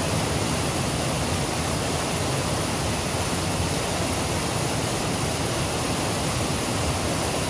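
Creek water rushing steadily, an even, unbroken hiss.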